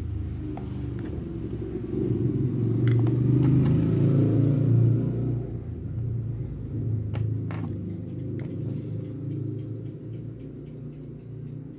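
Low, steady engine-like rumble that swells louder for a few seconds, with a few sharp clicks about seven seconds in.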